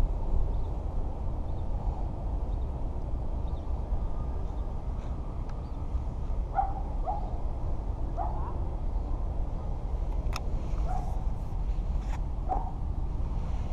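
Steady low rumble of wind on the microphone. From about halfway in there are half a dozen short animal calls, and two sharp clicks come near the end.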